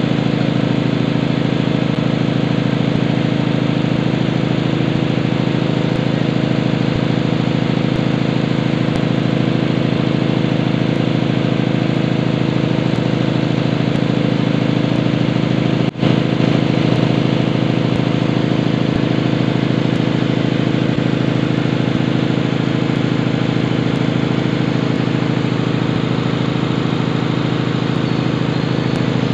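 Tanabe HC-277A reciprocating main air compressor running steadily on a test run after reconditioning: a loud, even mechanical drone, briefly cut off about halfway through.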